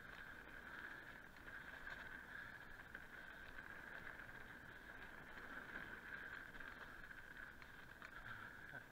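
Mountain bike rolling down a dirt trail: a faint, steady whir with a few light rattles and clicks.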